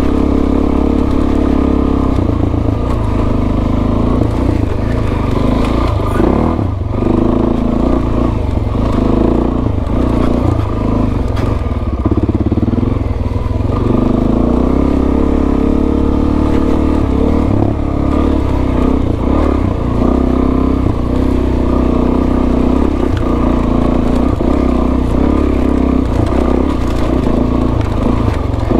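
Suzuki DR-Z400S's single-cylinder four-stroke engine running under way, its note rising and falling with the throttle, with scattered clatter and knocks from the bike over rough ground.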